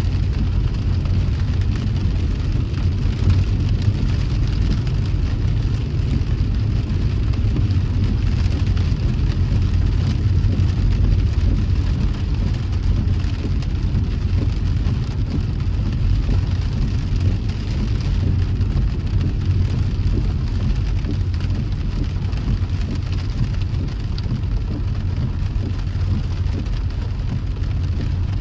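A car driving on wet roads in the rain: a steady low road rumble with an even hiss of tyres on wet road and falling rain.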